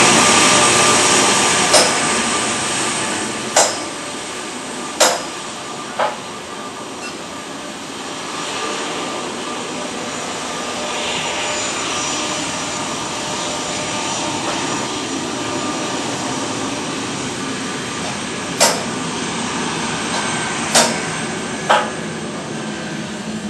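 Jet engines of a Boeing 757-200 running as the airliner rolls slowly along the runway. The noise is loudest at the start, eases over the first few seconds, then holds steady. About seven sharp clicks cut through it, three close together near the end.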